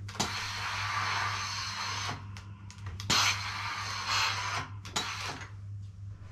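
Tefal steam-generator iron hissing out steam in three bursts, the first about two seconds long, over a steady low hum.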